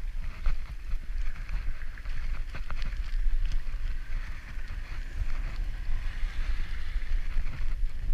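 Bicycle riding over wet, cracked asphalt, with wind buffeting the microphone as a low rumble, a steady hiss from the tyres on the wet road, and a few short knocks and rattles from bumps.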